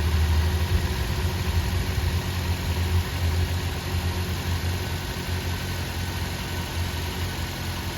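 Car engine idling steadily, run as a test after an ignition coil replacement meant to cure a misfire.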